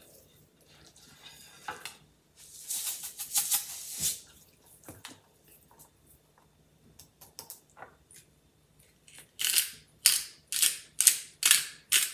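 A seasoning shaker being shaken over a whole raw tilapia on a plate: a grainy rattle about three seconds in, then, near the end, a quick run of about six gritty shakes, roughly two a second. Soft taps and rubbing from hands working the seasoning into the fish come in between.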